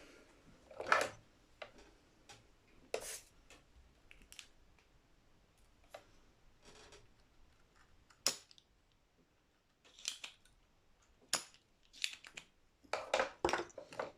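Small hand tools snipping and clicking at the guitar's wiring, irregular sharp snips with a quick run of them near the end, typical of wire cutters or strippers trimming and stripping wire ends.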